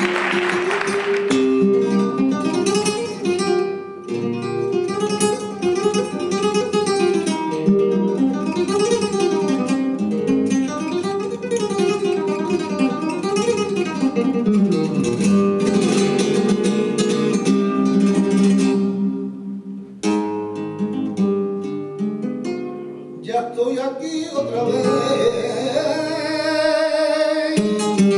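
Applause dies away in the first second or so, then a flamenco guitar plays a fandango introduction of plucked runs and strummed chords. Near the end the singer comes in with a long, wavering flamenco vocal line over the guitar.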